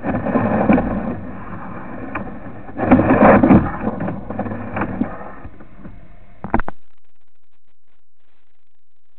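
Rumbling, scraping handling noise with scattered clicks as a sewer inspection camera's push cable is fed down the drain line, louder in two surges near the start and about three seconds in. It ends in a sharp knock about six and a half seconds in, then cuts off abruptly.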